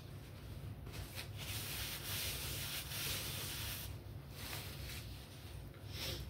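Paper fast-food packaging rustling and rubbing as it is handled, one stretch of a couple of seconds and a shorter rustle near the end.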